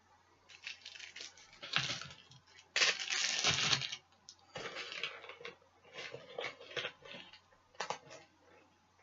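Packaging for puzzle cubes being handled and opened: irregular crinkling and tearing, with scattered clicks and one loud stretch of crinkling about three seconds in.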